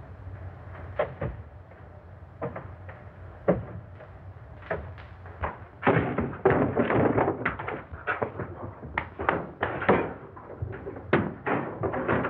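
Irregular knocks and thuds, a few at first, then coming thick and loud from about six seconds in.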